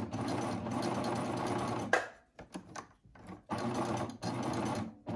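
Baby Lock Triumph serger stitching a 3-thread overlock with the differential feed set to gather. It runs for about two seconds and stops with a click, gives a few short bursts, then runs steadily again from about halfway, with brief pauses.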